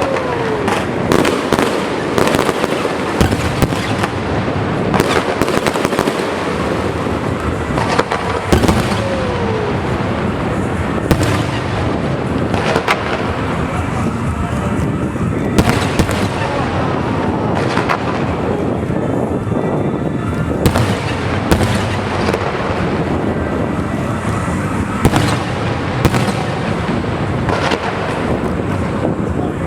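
Fireworks display going off continuously: a dense, irregular run of bangs and crackling, with a couple of short falling whistles.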